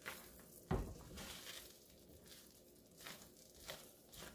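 Utensil scraping and knocking in a pan of thick, nearly cooked purple yam jam (halaya): a few irregular soft strokes, with one louder knock about a second in.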